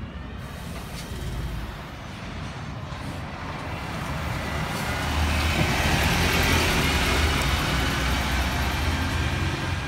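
Volvo double-decker bus driving past at close range, its engine rumble and tyre noise growing louder as it draws level and moves off, loudest from about halfway through.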